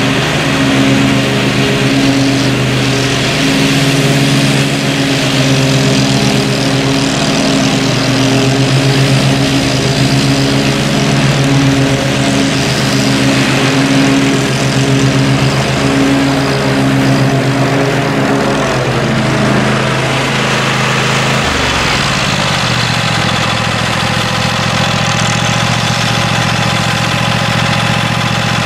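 Zero-turn riding mower engine running hard while mulching thick, tall weeds. About two-thirds of the way through, its pitch drops and it settles into a lower, steady run as it is throttled back.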